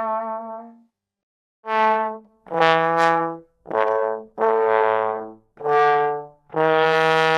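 Sad trombone 'wah wah wah' fail sound effect. A wavering held trombone note fades out, and after a short pause a new phrase starts: five short notes, then a long held note near the end.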